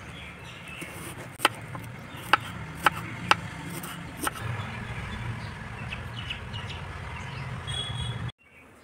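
Kitchen knife slicing a red onion on a wooden cutting board: four sharp knocks of the blade on the board in quick succession, over a steady low background hum.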